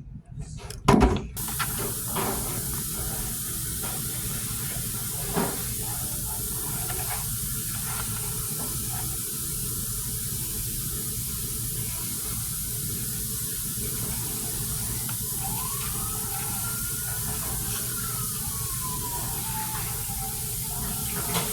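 Water running steadily from a kitchen tap, a continuous rush that starts just after a knock about a second in.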